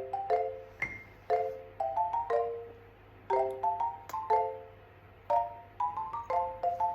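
Background music: a light, bouncy melody of struck mallet-percussion notes, marimba- or glockenspiel-like, played a few notes at a time in short phrases.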